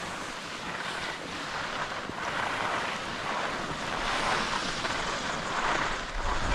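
Wind rushing over the microphone, a steady noisy roar that swells and eases, stronger in the second half.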